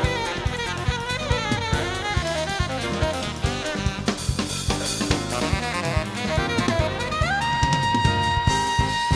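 Jazz-fusion band playing at full tilt: tenor saxophone, electric guitar, keyboards, bass and a busy drum kit. A fast run of lead notes slides up about seven seconds in to a long held high note.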